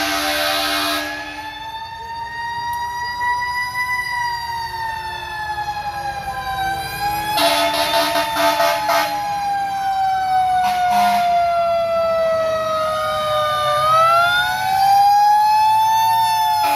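Fire engine siren wailing, its pitch rising and falling slowly over several seconds, with blasts of a fire truck air horn about a second in, around the middle and once more briefly just after.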